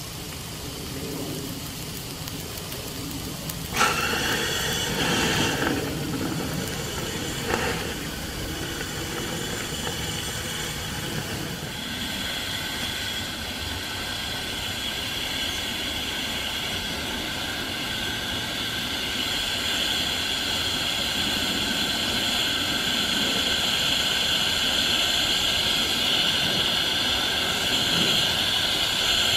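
Steam hissing out around the cylinder of an 1890s Atlas automatic steam engine: a sudden loud burst about four seconds in and a shorter one near eight seconds, then a steady hiss that slowly grows louder.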